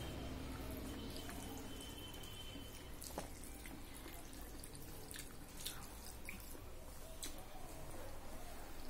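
Fingers mashing and mixing rice with dal on a steel plate, making soft wet squelches and scattered sharp clicks, with the wet mouth sounds of eating by hand.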